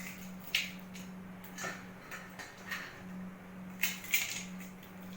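Crisp fried wafers (adai) being broken by hand into a bowl of noodle salad, giving four short, sharp crackles over a steady low hum.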